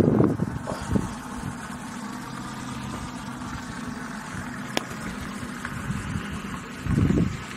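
Steady car engine and road noise heard inside the cabin, with a single sharp click about five seconds in and low rumbling swells near the start and near the end.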